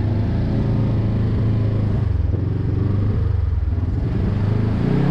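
Side-by-side UTV's engine running steadily under throttle as it drives over a rutted off-road track, heard from inside the open cab.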